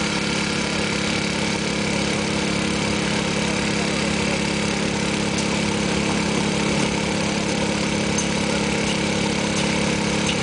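Small petrol engine running steadily at an even speed, with a few faint metallic ticks in the second half.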